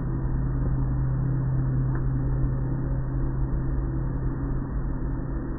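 Automatic car wash machinery and water spray running, heard from inside the car's cabin as a steady low hum with a rushing noise over it.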